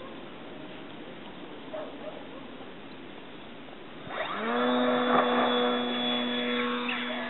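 Precision Aerobatics Addiction radio-controlled aerobatic plane's electric motor and propeller spooling up about four seconds in, rising quickly in pitch to a steady, much louder whine as the plane takes off. A steady hiss before that.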